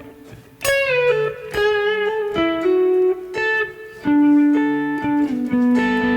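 Electric guitar, a Telecaster, played through a Strymon BigSky MX reverb pedal on its hall preset: a slow line of picked notes that starts about a second in, each note ringing on into the next under a hall reverb.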